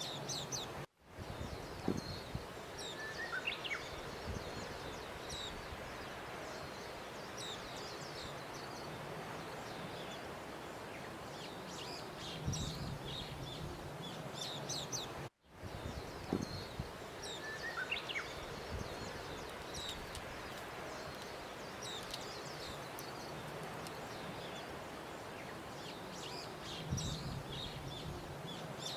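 Looped nature-ambience track: small birds chirping and twittering over a steady outdoor hiss, the same stretch repeating about every fourteen and a half seconds with a brief cut in the sound at each repeat.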